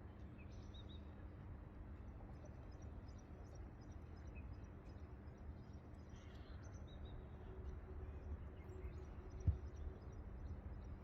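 Faint outdoor background noise with a steady low rumble and scattered small bird chirps, and one dull thump about nine and a half seconds in.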